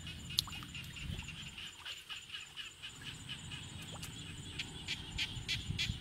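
Rhythmic chirping from a small animal, about five chirps a second, growing stronger over the last couple of seconds, over a low rumble.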